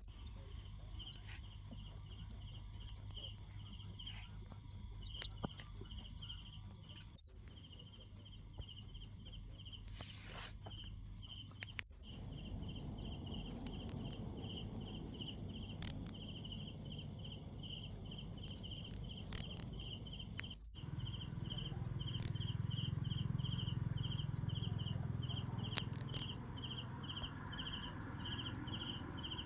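A cricket calling: a loud, high, evenly spaced train of chirps, several a second, with a fainter second chirping insect behind it.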